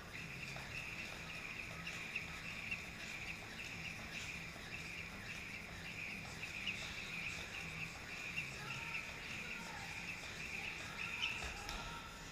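Jump rope whirring in a fast, even rhythm as it is skipped, stopping shortly before the end.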